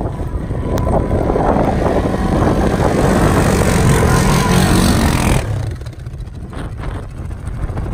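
ATV engine running under throttle with a loud rushing noise. About five and a half seconds in the rushing cuts off abruptly, leaving a quieter, lower engine sound.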